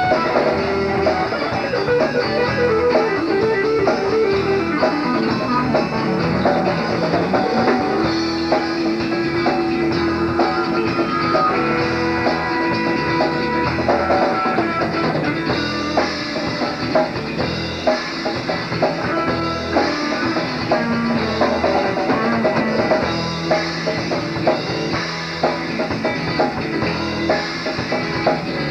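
Southern rock band playing, with guitars, bass and drum kit. A lead guitar line bends between notes and holds one long note about a third of the way in.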